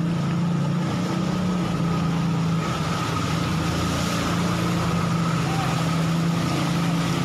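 Fire truck's engine running steadily as it drives through floodwater: a constant low hum with a thin steady whine above it, over a wash of water and street noise.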